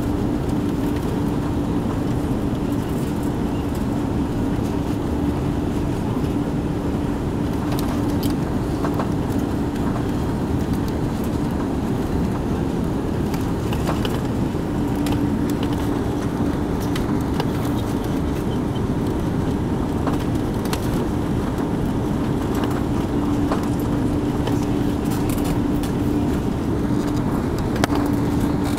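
Airliner cabin noise during the approach: a steady rush of engine and airflow noise from an Airbus A340-600 with its four Rolls-Royce Trent 500 engines, with a constant low hum running through it.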